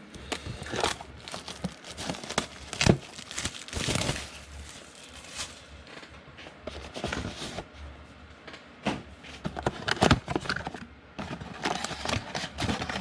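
Football card pack wrappers crinkling and being torn open, with irregular crackles and rustles as the packs and cards are handled.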